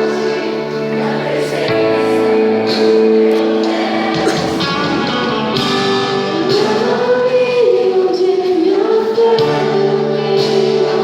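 Worship band playing a song, with held keyboard-like chords. A singer's melody comes in about six seconds in.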